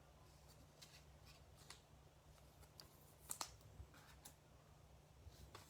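Near silence: a few faint clicks and light rustling of baseball trading cards being handled, the sharpest tick about three and a half seconds in, over a low steady hum.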